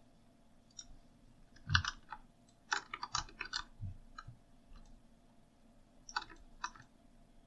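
Computer keyboard keys and mouse buttons clicking in short clusters as keyboard shortcuts are pressed: a handful of clicks about two seconds in, a quicker run around three seconds, and a few more near the end.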